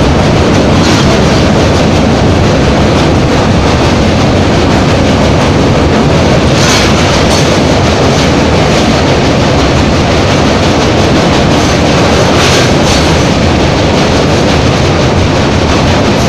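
Passenger train running at speed across a steel girder bridge: a loud, steady rumble and rattle of wheels on rails, heard from the carriage's open side. Twice, about seven and twelve seconds in, a brief hissing rush rises over it.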